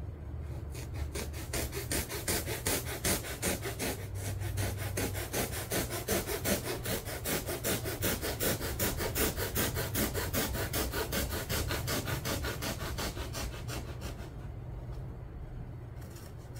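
A bare hacksaw blade rasping back and forth across polyurethane seat foam in quick, even strokes, about five a second, shaving a glued-on foam patch to shape. The strokes slow and thin out near the end.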